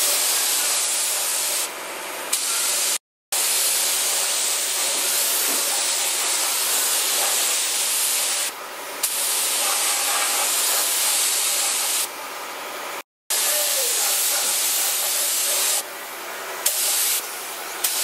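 Gravity-feed air spray gun hissing steadily as it sprays primer onto a metal bar. The hiss dips briefly several times between passes and cuts out completely twice for an instant.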